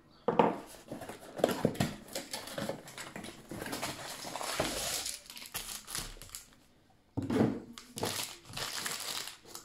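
Handling of a cardboard kit box and a plastic-wrapped rolled canvas: sharp knocks and bumps on a wooden tabletop mixed with crinkling of the plastic wrap, with a short pause just past the middle.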